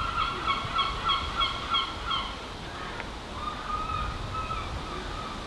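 A bird calling: a rapid series of loud, repeated harsh notes, about three or four a second, stopping about two seconds in, then fainter drawn-out calls near the end.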